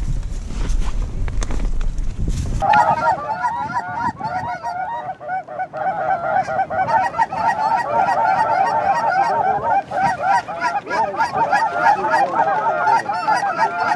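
A large flock of Canada geese honking, many overlapping calls at once, starting abruptly about two and a half seconds in and carrying on steadily. Before that there is only a low rumble.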